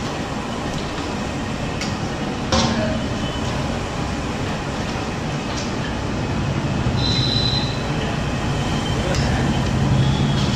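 A plastic scraper scoops boondi mixture out of a kadai and knocks against the metal, with one sharp knock about two and a half seconds in. Under it runs a steady noisy din with faint voices.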